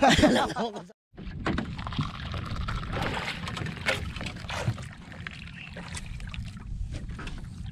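Hot drink poured from a plastic insulated jug into cups, with a few small clicks of cups and jug, over steady wind and sea noise on an open boat. A man's laugh is heard right at the start, before a brief cut.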